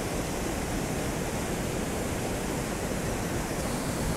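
Steady rush of a waterfall pouring into a river pool, an even roar of falling water.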